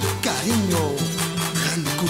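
A band playing an Andean salay: acoustic guitar strumming over steady bass notes and drum strokes at a brisk even beat of about four a second, with a sliding melody line above.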